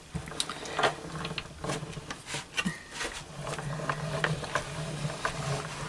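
Stampin' Up manual die-cutting and embossing machine being hand-cranked, its rollers drawing a stack of cutting plates and an embossing folder through. A low drone that comes and goes, with scattered clicks and knocks.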